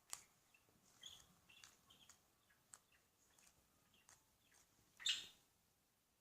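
Butter slime being squished and stretched by hand, giving faint sticky clicks and small pops, with one louder pop about five seconds in.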